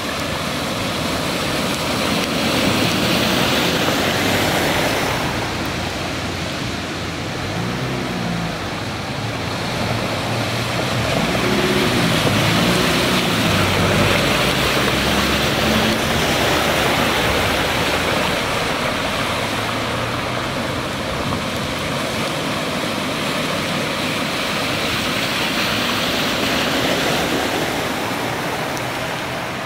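Cars driving one after another through deep floodwater on a paved street, tyres splashing and hissing through the water. Each pass swells and fades, and a passing engine's tone rises and falls twice in the middle.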